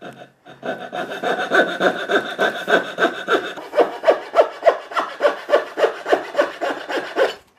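Hand saw cutting a shallow curve into the edge of a wooden board clamped in a vise, in quick, even strokes about three a second that stop abruptly near the end.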